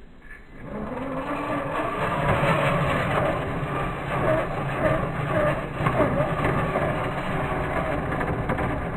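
Axial SCX10 II RC crawler's electric motor and geared drivetrain whining under throttle as it climbs a dirt bank. The whine comes in about a second in and rises and falls in pitch with the throttle.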